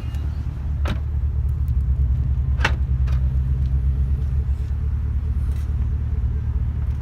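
Holden Commodore SS V's 6.0-litre V8 idling steadily through an aftermarket Xforce exhaust: a deep, even rumble. Two short, sharp higher sounds come about one second and two and a half seconds in.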